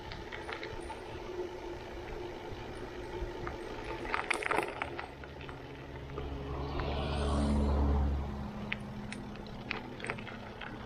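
Mountain bike rolling over a dirt and gravel path: tyre crunch and rattling of the bike, with scattered sharp clicks. It grows louder in the middle, a low rumble with a rush over it, then settles back.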